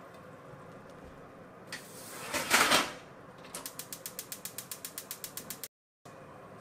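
Gas hob's built-in fish grill being lit: the spark igniter clicks rapidly, about eight clicks a second for about two seconds. Before that, a louder rushing noise swells and fades about two seconds in.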